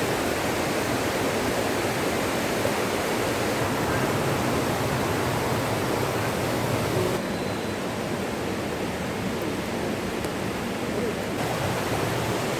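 Waterfall rushing: a steady, even wash of falling water, slightly duller for a few seconds past the middle.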